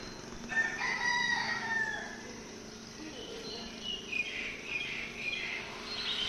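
A rooster crowing once, a single long call starting about half a second in and falling away at its end, followed by short bird chirps.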